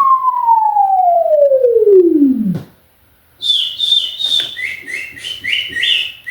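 A played-back sound effect: a whistle-like tone slides steadily down in pitch and stops about two and a half seconds in. After a short gap come rapid high chirps that flick between two pitches, about three a second.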